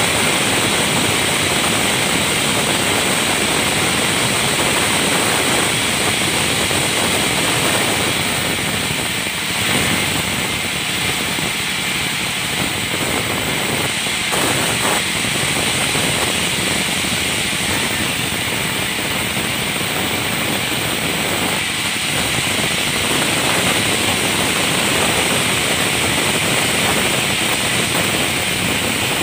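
Band sawmill running steadily and loudly, its blade cutting through balsa wood.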